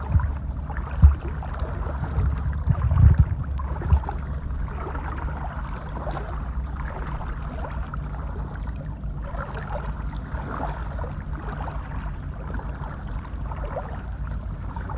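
People wading through knee-deep seawater, the water swishing and sloshing around their legs, over a steady rumble of wind on the microphone. A few thumps come in the first four seconds.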